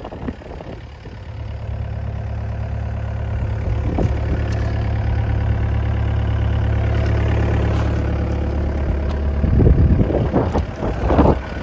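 Yanmar diesel engine of an IHI 65NX excavator running steadily at idle. Near the end, bursts of louder rough noise cover the engine.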